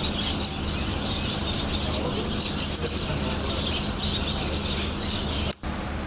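Many caged parakeets chirping and chattering together, a dense continuous mass of high, short calls; it cuts off abruptly near the end.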